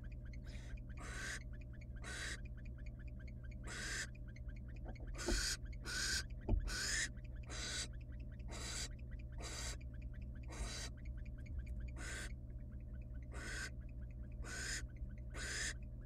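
Barn owl nestlings hissing their rasping begging calls while being fed, short breathy bursts a little over one a second, overlapping and irregular. Two soft thumps from movement in the wooden nest box come about five and six and a half seconds in, over a steady low electrical hum.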